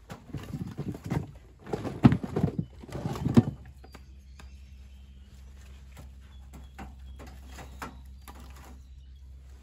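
Split oak firewood pieces knocking and clunking against each other as they are handled and stacked, a cluster of loud wooden knocks in the first few seconds, then a few lighter clacks.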